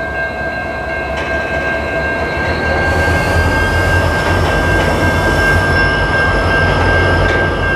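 Freight cars, black tank cars and a gondola, rolling slowly past over jointed track with a low rumble that grows louder in the middle. A steady high-pitched tone runs throughout, and a faint whine rises in pitch partway through.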